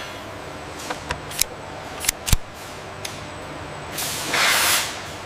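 Panel being fitted onto a metal floor rail: a handful of sharp clicks and knocks, the loudest just past two seconds in, then a loud hiss about four seconds in, over a steady low machine hum.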